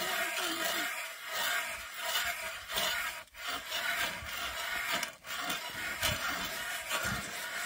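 Hand ice auger being turned into lake ice, its blades scraping and rasping continuously with a couple of brief pauses. The auger is not biting into the ice well.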